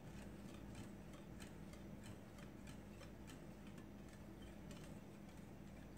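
Wire whisk beating a liquid eggnog mixture in a glass bowl: faint, rapid ticks of the wires against the glass, about three to four a second.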